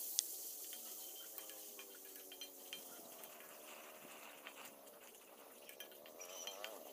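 Faint buzz of a flying insect, fading over the first few seconds and returning with a quick wavering near the end, over the steady rush of a stream. A spatula scraping and ticking now and then against a wok.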